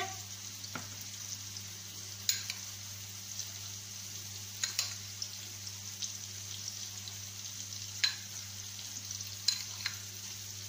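Chopped onions sizzling in hot oil in a frying pan, a steady hiss broken by a few sharp pops, as the onions are lightly fried.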